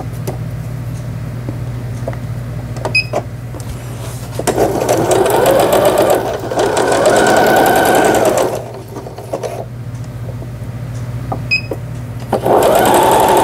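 Janome Memory Craft 5000 computerized sewing machine stitching through denim in three runs, its motor speeding up briefly at the start of each run and then running steadily, with a few short beeps and clicks between runs.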